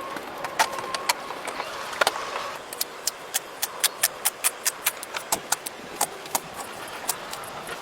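A series of sharp clicks, scattered at first, then a quick regular run of about three or four a second that stops near the end.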